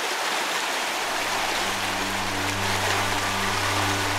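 Whitewater rapids rushing over rocks, a steady, full roar of water. A steady low hum sits underneath from about a second and a half in.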